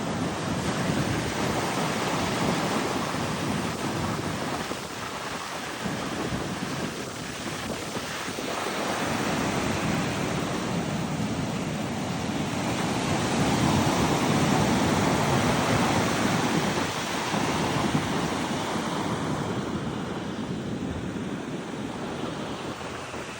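Ocean surf breaking and washing up the beach, swelling and easing several times and loudest near the middle, with wind buffeting the microphone.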